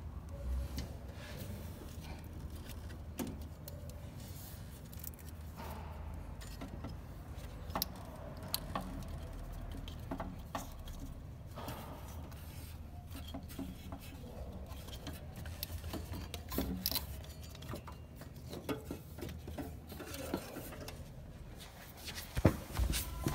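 Light metallic clicks, clinks and rubbing of hand work in the engine bay as the slack timing belt is worked off its pulleys, with a louder knock near the end.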